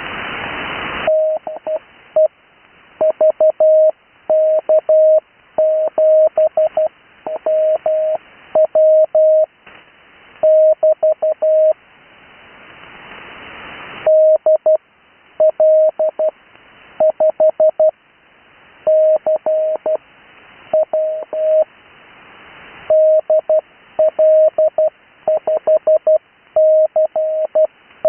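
Morse code callsigns sent as CW: a single steady-pitched beep keyed on and off in dots and dashes. It comes in three runs, and between them a hiss swells up.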